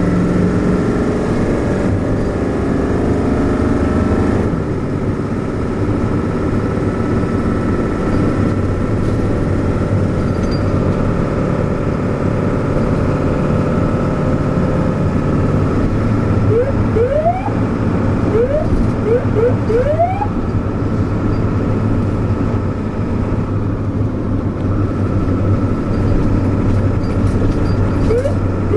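Steady engine and road noise heard from inside a moving vehicle. About two-thirds of the way in, a siren gives several short rising whoops. Near the end a siren begins to wind up, rising steadily in pitch.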